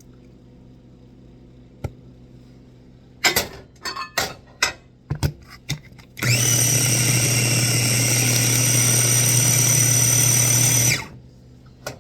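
A few knocks and clatters, then an electric blender motor runs for about five seconds at high speed, grinding nuts for peanut butter. Its whine rises as it spins up and falls away when it is switched off.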